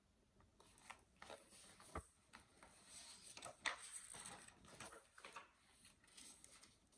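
Faint paper rustling and small soft knocks as the pages of a large hardcover picture book are handled and turned, with one soft knock about two seconds in.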